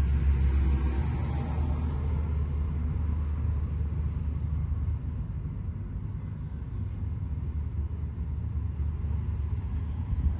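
Air-cooled 3.3-litre turbocharged flat-six of a 1978 Porsche 911 Turbo (930) idling steadily, heard close up in the engine bay as a low, even rumble that eases slightly partway through.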